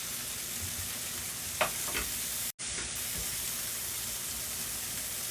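Pinto beans frying in a hot pan, a steady sizzle, with a couple of light clicks of a utensil against the pan about a second and a half in.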